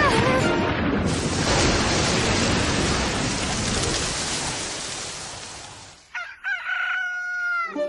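Storm wind blowing as a steady rush that fades away about six seconds in. A rooster then crows once near the end, a long held crow that marks the morning after the storm.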